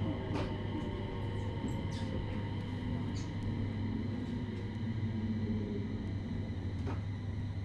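JR East 701 series electric train heard from inside the car as it slows into a station: a steady low running hum with a falling motor whine that fades out in the first couple of seconds, and a few faint clicks.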